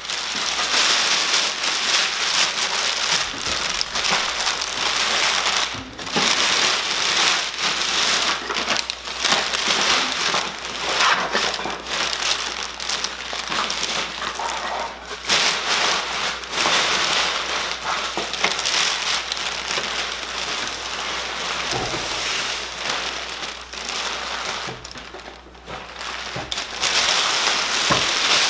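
Large clear plastic bag crinkling and rustling continuously as it is worked off a printer and bunched up by hand, with a short lull near the end.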